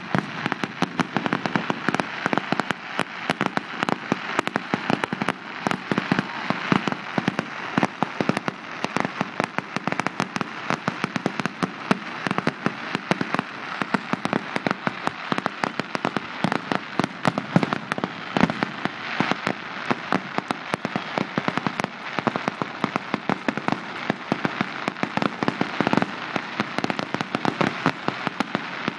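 Fireworks going off in a dense barrage: many sharp pops and crackles every second, without a pause.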